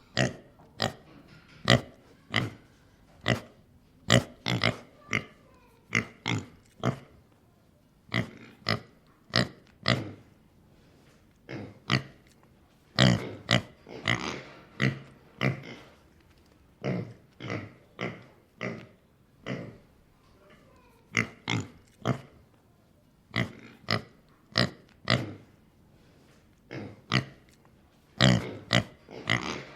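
A pig grunting: a long run of short, sharp grunts and oinks, about one or two a second, with brief pauses between runs.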